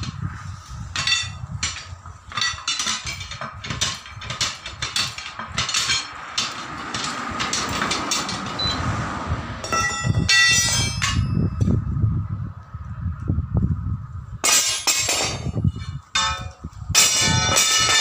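Steel tyre lever knocking and prying against a truck wheel's steel rim while a tyre bead is worked loose: a quick run of metal knocks, then a few separate clangs that ring on.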